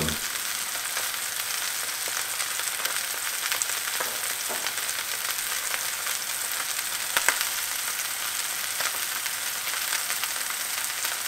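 Chicken breast searing in hot olive oil in a stainless steel frying pan over high heat: a steady sizzle with scattered small pops and crackles of spitting fat, one louder pop about seven seconds in.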